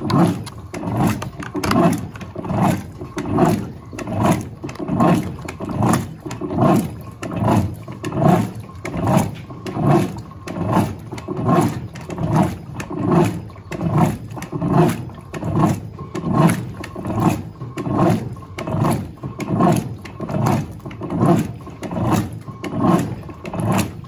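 Electrolux Turbo Acqua Jet 15.2 kg direct-drive top-loading washing machine in the agitation stage of its stain-removal programme: the agitator swings back and forth through soapy water at the minimum level with a rhythmic swish and slosh, about three strokes every two seconds.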